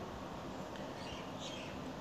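Faint high chirps of a small bird, a few scattered short calls over a steady background hiss.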